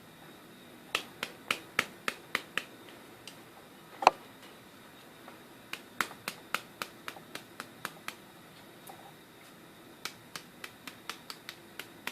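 Light, quick hammer taps, about four a second in three runs with one louder knock about four seconds in, as a rubber hammer presses the newly wound copper coil ends of a washing machine motor's stator into shape.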